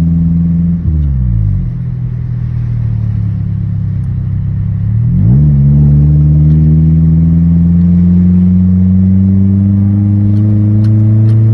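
Mini truck's engine heard from inside the cab while driving. The revs drop about a second in, pick up sharply about five seconds in, then climb slowly under acceleration and fall again at the very end, as with a gear change.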